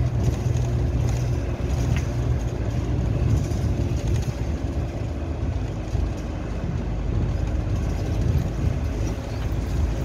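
A car moving along a sandy dirt track, heard from inside the cabin: steady low engine and tyre noise.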